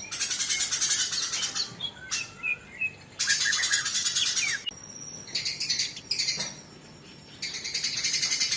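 Eurasian tree sparrows chirping rapidly in a fight, in dense bouts of chatter. The bouts come at the start, again about three seconds in, and from about seven and a half seconds on, with quieter gaps between.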